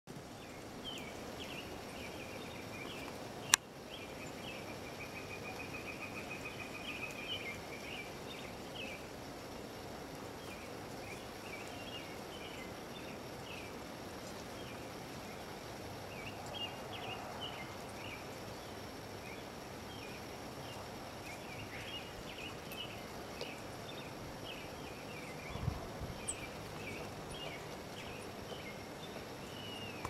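Outdoor background with small birds chirping on and off and one brief trill, over a steady low hiss. One sharp knock stands out about three and a half seconds in, and a duller thump comes near the end.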